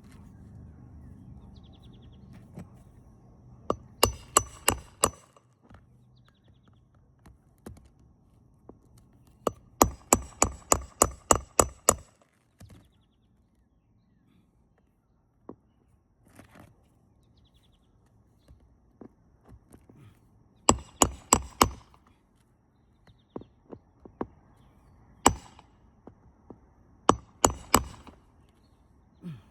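Hammer driving roofing nails through composition shingles, in runs of quick, sharp strikes: a run of about five, a longer run of about nine, then shorter runs and a single blow.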